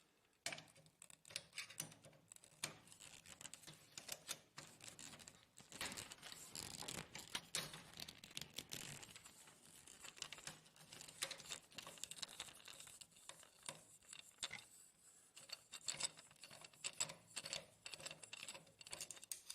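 Faint, irregular clicking and scraping of a screwdriver backing out screws from the duplex gear assembly of an HP LaserJet printer, with plastic and metal parts being handled.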